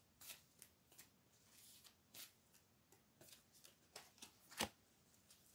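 Tarot cards being shuffled and handled, faint soft flicks and riffles with one louder tap about four and a half seconds in.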